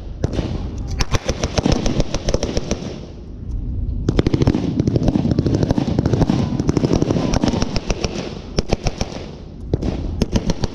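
Machine-gun blank fire in rapid bursts, with a short lull about three seconds in and a long burst after it.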